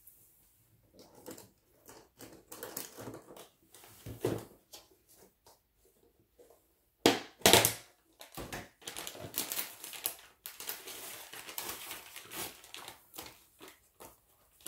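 Irregular crinkling and rustling of material handled close to the microphone, with a loud crunch about seven seconds in and denser, continuous rustling after it.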